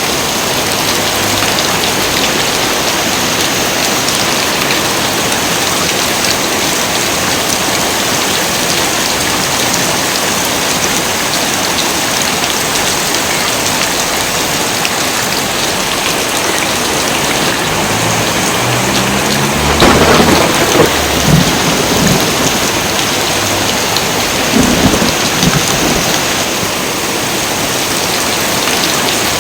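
Heavy rain falling steadily, with thunder: a low rumble builds about two-thirds of the way through into a loud crack, followed a few seconds later by a second, smaller rumbling clap.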